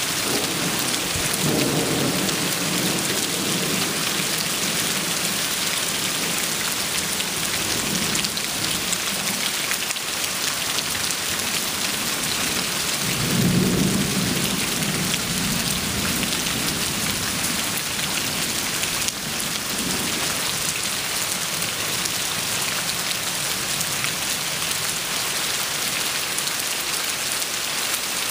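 Steady thunderstorm rain, with water splashing on concrete, and rolling thunder: a rumble starting about a second in and a louder one about halfway through.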